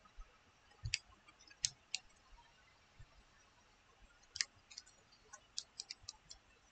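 Faint clicks of keys being tapped while a number is worked out: a few spaced taps in the first two seconds, then a quicker run of about eight in the second half.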